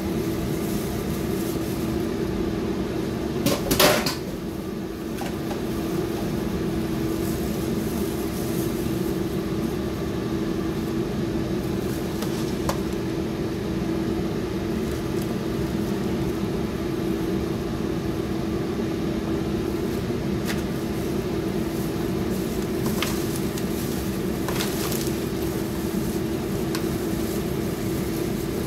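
Steady electric hum of a kitchen appliance with one strong steady tone. About four seconds in comes a short clatter of a spoon against a foil pan, and later a few light taps and crinkles of foil as the salad is mixed.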